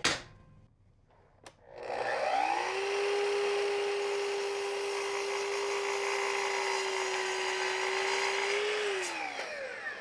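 Sliding compound miter saw starting up: its motor winds up over about a second, runs at a steady pitch while the blade cuts through a wooden leg board, then winds down near the end. A sharp click at the very start and a lighter click shortly before the motor starts.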